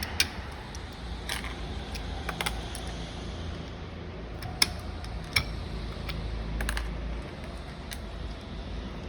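Scattered light metallic clicks and taps, about half a dozen, from needle-nose pliers and small parts as the keepers and springs are worked off the clutch weights of a GX200 engine's clutch, over a steady low hum.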